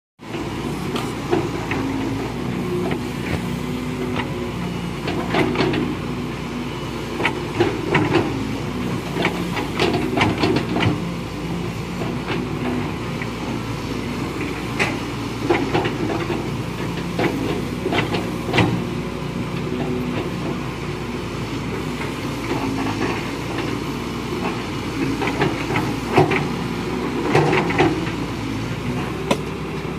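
Caterpillar 320C hydraulic excavators at work: diesel engines running steadily under load, with frequent sharp clanks and knocks from the digging, thickest about a third of the way in and again near the end.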